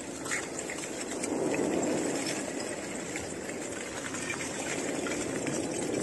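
Front of a rough, blocky lava flow advancing: glassy chunks of cooling lava crack, clink and tumble over one another in a continuous crackling clatter that sounds like breaking glass. The lava is mostly volcanic glass, and that glass is what makes the sound.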